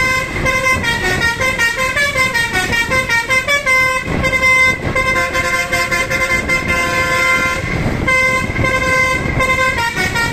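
Bus 'telolet' horn, a multi-tone musical air horn, playing a fast tune of short notes that step up and down several times a second, over the low rumble of the bus.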